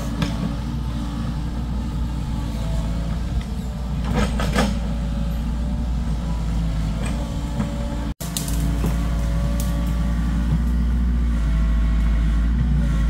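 Compact excavator's diesel engine running steadily as it digs into soil, with a few short crunching scrapes about four seconds in. The sound cuts out for an instant about eight seconds in.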